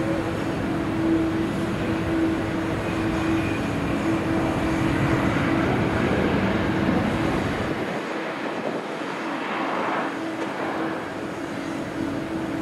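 Jet airliner engines running, a steady rushing noise with a constant low hum; the deepest rumble drops away about eight seconds in.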